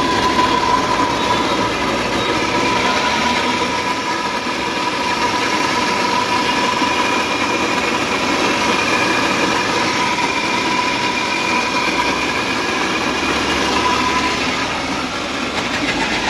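E-rickshaw rear drive running under power with a rear wheel lifted and spinning freely, making a loud, rough running noise with a steady high whine that fades near the end. The same noise comes with either rear wheel lifted, which rules out the wheels: the fault lies either in the motor (worn bearings or shaft) or in the crown (differential ring gear).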